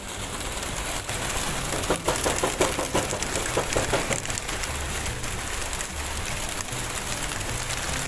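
A flock of racing pigeons taking off together from the opened crates of a transport truck: a dense, steady clatter of flapping wings, thickest in the first few seconds.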